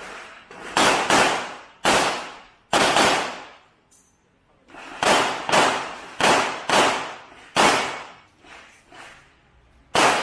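Handgun shots fired by a competitor moving through a practical-shooting course: about a dozen loud cracks, many in quick pairs, each trailing off in echo. There is a short pause of about a second near the middle.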